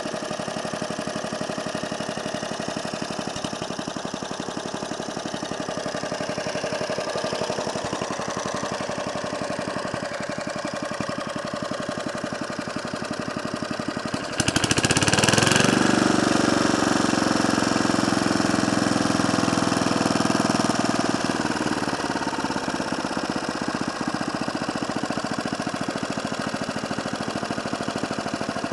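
Hayterette rough-cut mower's engine running steadily. About halfway through it suddenly gets louder and higher with a short burst of hiss, holds there for several seconds, then drops back to its steady run.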